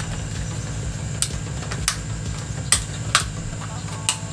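Five sharp clicks and taps, about a second apart, as a small stick mixes two-part epoxy glue. Under them runs a steady low engine-like hum.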